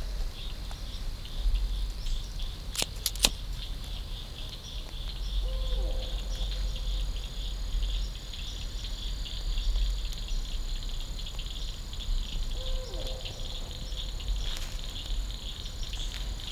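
Evening chorus of crickets and other insects: a steady, fast-pulsing high trill, joined about six seconds in by a second, higher steady trill. Two sharp clicks sound about three seconds in.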